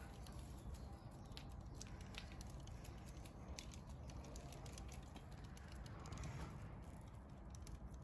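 Faint rustling and crackling of dry grass and weeds, with many scattered light ticks over a steady low rumble, as a cat moves and pounces through the vegetation.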